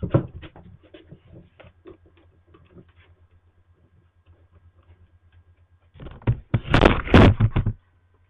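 Scattered small clicks and knocks, then about six seconds in nearly two seconds of loud rustling and bumping as the webcam is moved and handled, over a steady low electrical hum.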